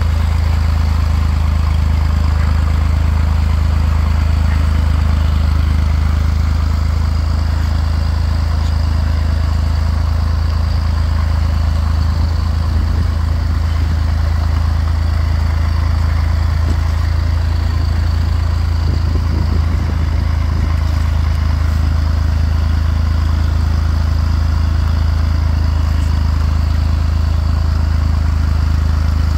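Small tractor engine running steadily under load as it pulls a two-bottom moldboard plow through sod, with a loud, even low hum.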